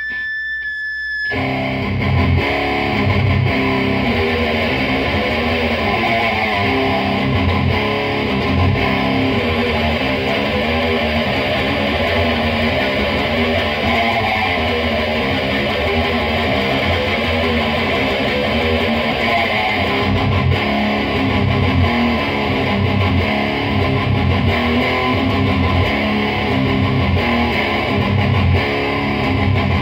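Electric guitar played through a Lone Wolf Audio Caveman pedal into an amp: heavily distorted riffing with a thick, rhythmic low end. A short high steady tone sounds for about the first second before the riffing starts.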